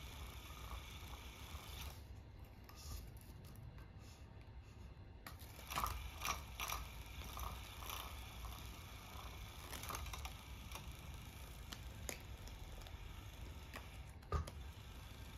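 Electric rotating cat toy running, a faint mechanical whir with clicks as its motor spins the feather wand. It stops about two seconds in and starts again a few seconds later, with scattered sharp taps and knocks.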